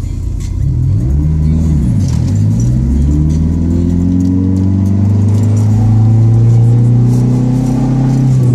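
Turbocharged four-cylinder engine of a built Dodge SRT-4, heard from inside the cabin under acceleration. It revs up and back down about a second in, then climbs steadily in pitch through one long pull, and falls near the end.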